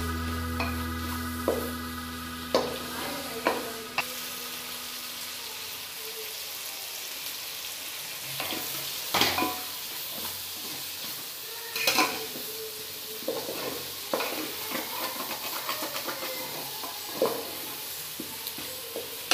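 Chopped vegetables sizzling in an aluminium pot while a spatula stirs and scrapes through them, knocking against the pot's side every few seconds.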